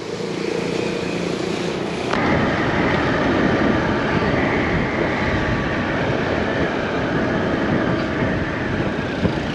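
A small motor scooter on the move: its engine runs steadily under a loud, even rush of wind on the microphone. The rush starts suddenly about two seconds in, after a quieter steady hum.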